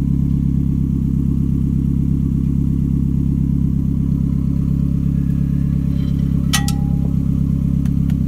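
Toyota Camry All-Trac's four-cylinder engine idling steadily, heard from beneath the car along its freshly replaced exhaust, with an even low pulse. A brief click comes about two-thirds of the way through.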